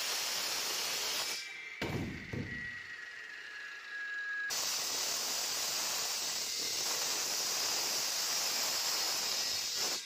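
Handheld electric diamond-blade saw grinding through a concrete slab, a steady harsh hiss. It drops away for about three seconds shortly after the start, then comes back steadily.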